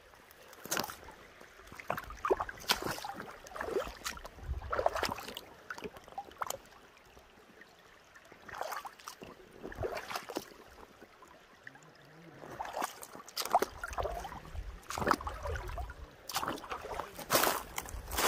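Footsteps walking off: irregular crunching steps with dull thuds, roughly one or two a second, easing off briefly twice.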